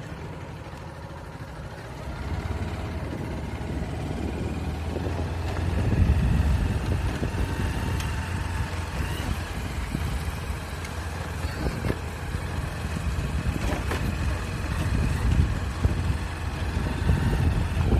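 A moving vehicle's engine and road noise: a steady low rumble that grows louder about two seconds in.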